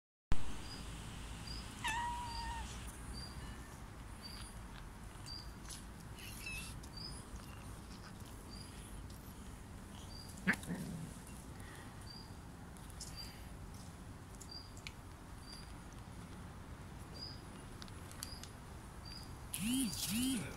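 Stray cats meowing at feeding time: one meow about two seconds in and two short, low meows near the end. A faint high peep repeats every half second or so.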